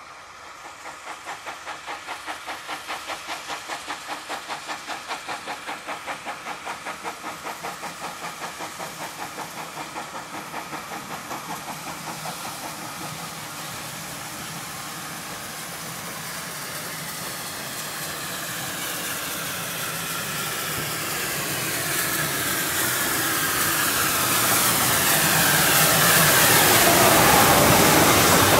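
Steam locomotive running in, its exhaust beating in a rapid, even chuff from about a second in. After about twelve seconds the beats fade into a steady hiss and rumble that grows louder as the engine and its carriages pass close by, loudest near the end.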